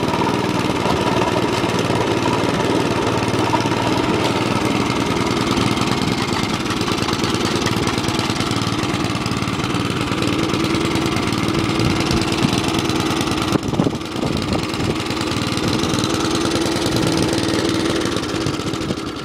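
Small petrol engine of an Atco Commodore 17B cylinder lawn mower running steadily, with a brief dip about two-thirds of the way through, then cutting off at the end.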